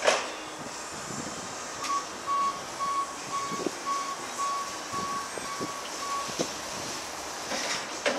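Electric forklift's reversing alarm beeping about twice a second as the truck backs up, a single steady pitch, starting about two seconds in and stopping about six seconds in. A sharp clunk comes right at the start and another just before the end.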